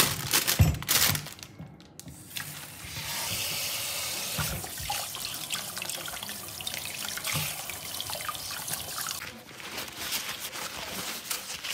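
Kitchen tap running into a plastic bowl in a stainless steel sink while bell peppers and a lemon are rubbed clean by hand, with a few knocks in the first second as the vegetables drop into the bowl. Near the end the water stops and a paper towel rustles as the peppers are dried.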